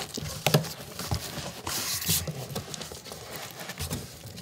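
Large corrugated cardboard box with a heavy box inside being handled: scattered knocks and thumps of cardboard, the sharpest about half a second in, with a scraping rustle of cardboard sliding on cardboard about two seconds in.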